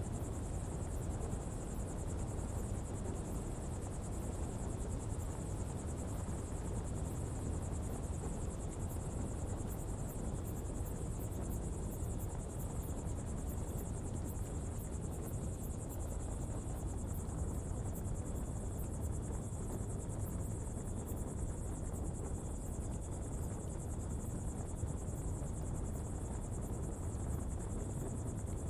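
Coal-fuelled pottery fire burning with a steady low rumble. A constant high insect trill sounds over it.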